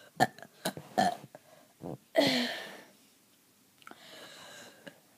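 A person burping. There are a few short, abrupt throat sounds in the first second, then one longer burp about two seconds in that drops in pitch.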